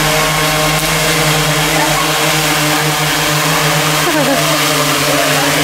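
A 3D-printed quadcopter's four Emax MT3515 brushless motors turning 15-inch carbon propellers while it hovers: a loud, steady, even-pitched hum of motors and props.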